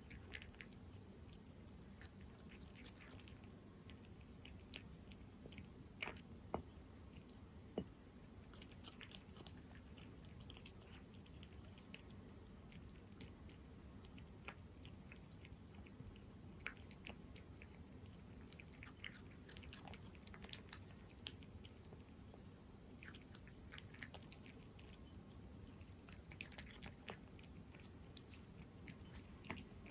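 A cat chewing wet chicken-in-jelly cat food, a faint run of small wet clicks, with a few louder clicks about six to eight seconds in.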